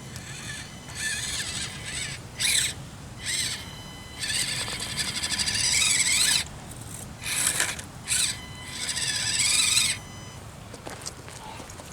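Axial SCX24 micro crawler's small electric motor and gear train whining in a series of short throttle bursts, some brief and some lasting a couple of seconds, the pitch rising and falling as it crawls over rock.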